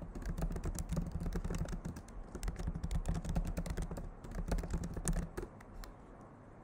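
Rapid typing on a computer keyboard, a quick run of key clicks that stops about five seconds in.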